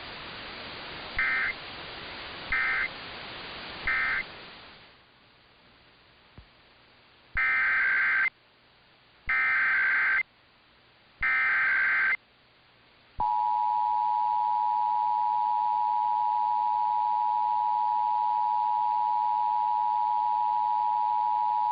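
Emergency Alert System data and alert tones. First come three short screechy SAME end-of-message data bursts over a hiss, then a couple of seconds of quiet. Next come three longer SAME header bursts about a second apart, then the steady two-tone EAS attention signal (853 and 960 Hz) starting about 13 seconds in.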